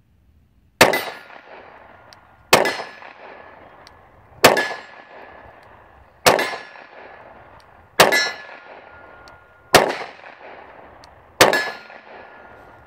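Seven 9mm pistol shots from a Glock 43, spaced about 1.7 seconds apart, each followed by the ringing clang of an AR500 steel target plate. Six of the seven are hits on the steel and one is a miss.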